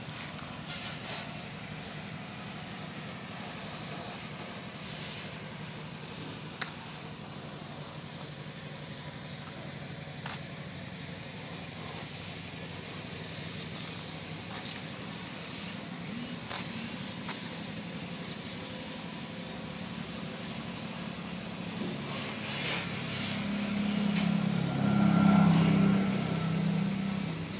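Steady rumble of motor-vehicle engines and traffic, swelling loudest near the end as a vehicle passes close by.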